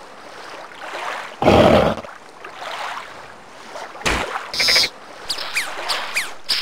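Cartoon sound effects: a loud rushing burst, a short low thump, then a run of quick rising whistles near the end.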